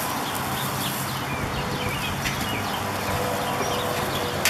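Steady outdoor background with short chirps from birds. A single sharp click near the end, as of metal grill tongs against the steel grill grate while steaks are being turned.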